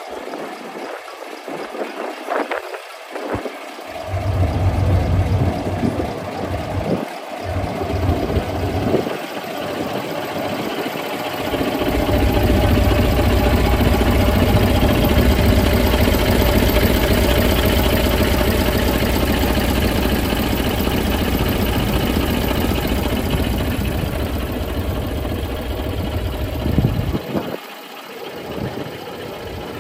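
Engine of a 1967 Scania Vabis LS 76 hot-rod truck running, uneven at first, then louder and steady from about twelve seconds in, with a brief dip near the end.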